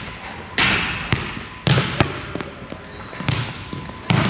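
A volleyball being kicked and bouncing on a hardwood gym floor, about six sharp smacks that echo in the large hall. A thin high squeak lasts about a second around three seconds in.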